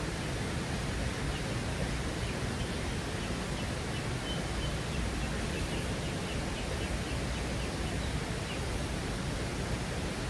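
Steady rushing of a river's flowing water, with a few faint high chirps near the middle.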